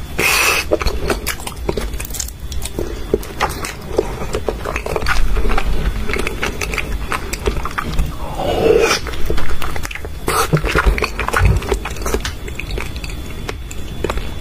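Close-miked wet chewing and lip smacking of raw salmon sashimi: a dense run of small sticky mouth clicks, with a few louder bites about eight and ten seconds in.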